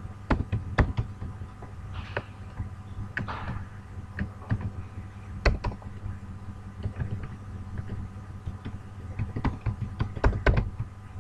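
Computer keyboard keys being typed slowly, irregular single clicks a fraction of a second to a second apart, over a steady low hum.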